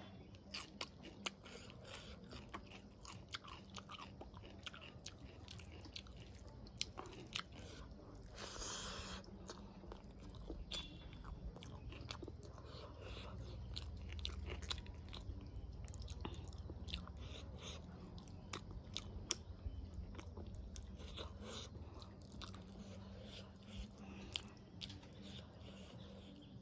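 A person chewing and biting food close to the microphone: crunching bites of raw radish and mouthfuls of rice and vegetables eaten by hand, with many short mouth clicks.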